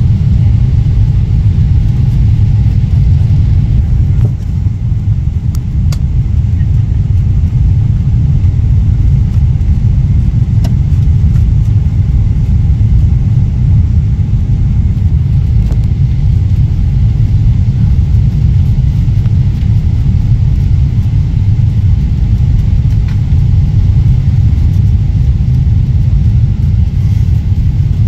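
Steady low rumble of cabin noise inside a Boeing 777 airliner on its descent, engine and airflow noise heard from a passenger seat.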